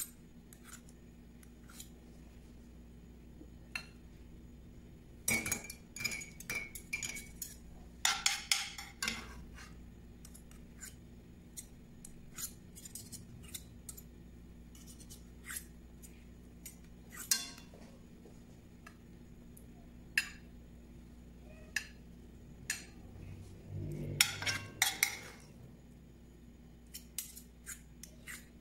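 Two metal spoons scraping and clinking against each other and a cast-iron skillet as creamed spinach is scooped and shaped, with the odd tap on a porcelain plate. The clinks come in scattered single taps and short bunches, busiest about five, eight and twenty-four seconds in.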